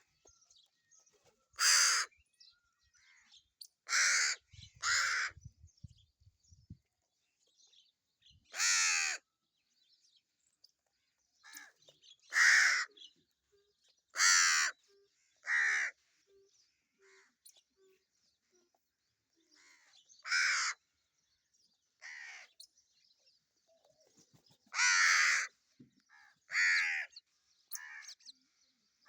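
Crows cawing: about a dozen harsh, single caws at irregular intervals, some in quick pairs.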